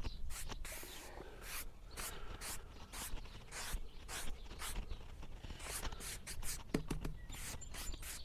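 Repeated short rubbing scrapes, about one or two a second, of sawdust being wiped off the face of a freshly sawn oak slab to show the grain.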